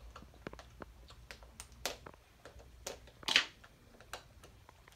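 Scissors snipping and a small plastic toy capsule and its wrapper being handled: scattered light clicks and ticks, with two short louder rustles of plastic, the louder a little over three seconds in.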